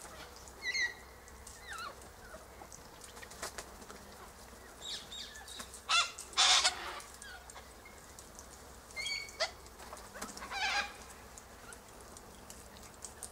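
A flock of white cockatoos giving scattered short squawks, with one louder harsh screech about six seconds in.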